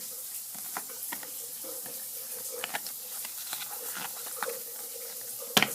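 Crinkling and rustling of a Pokémon booster pack's foil wrapper and cards being handled, small crackles throughout, with one sharp click near the end.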